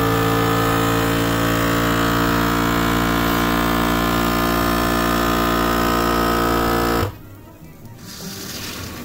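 FoodSaver vacuum sealer's pump running with a steady hum as it draws the air out of a bag packed with onions. It cuts off suddenly about seven seconds in, as the bag is drawn down and the machine moves on to sealing.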